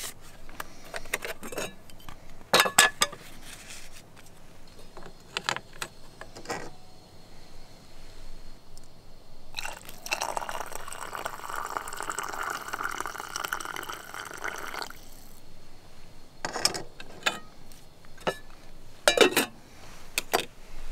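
Water poured from a camping cook pot into an insulated mug to make tea: a steady pour lasting about five seconds in the middle. Before and after it come scattered clinks and knocks of the pot, lid and mug being handled.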